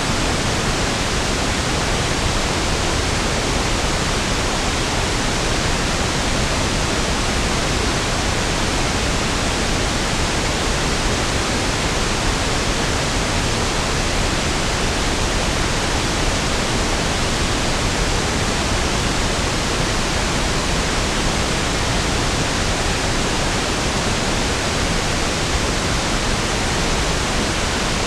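Steady pink noise (1/f noise): an even, unchanging hiss with equal energy per octave, smoother and deeper than white noise.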